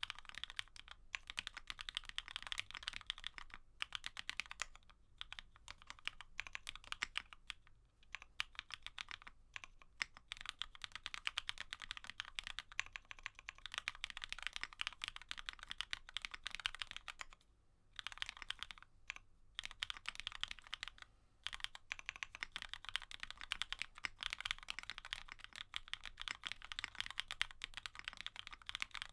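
Continuous fast typing on a GEONWORKS F1-8K custom mechanical keyboard with an FR4 gasket-mounted plate and Poron foam, linear Cherry-housing/Kailh-cream-stem switches and CMK keycaps: a dense stream of keystroke clacks, broken by a few short pauses about two-thirds of the way through.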